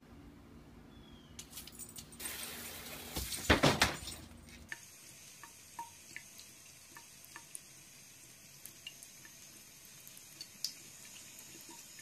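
Thin stream of water trickling from a bathroom tap into a sink, with small drips and taps scattered through it. Before that, near the start, a short loud burst of noise comes about three and a half seconds in.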